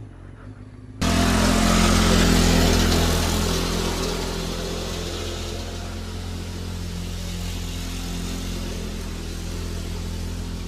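A motor vehicle's engine humming steadily under loud rushing noise; the sound cuts in abruptly about a second in and eases a little after the first few seconds.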